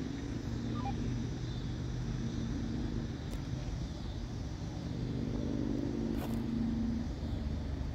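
Steady low rumble of distant engines, with a faint hum that swells a little and eases off again, and a couple of faint clicks.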